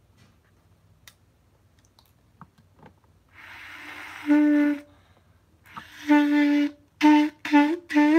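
Clarinet being blown: a few faint key clicks, then an airy rush of breath through the instrument, then a low reedy note held for about half a second. The same note returns in three or four short loud blasts with brief breaks between them.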